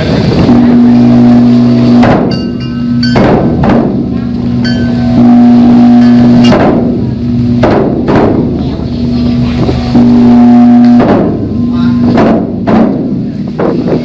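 Large bronze temple bell struck again and again with a wooden striker, each strike a sharp knock followed by a steady low hum.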